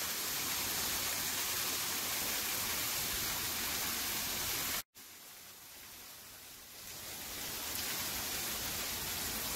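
Water cascading steadily down a rock waterfall, a constant rushing hiss. About five seconds in it cuts out for an instant, comes back much quieter, and builds back up over the next few seconds.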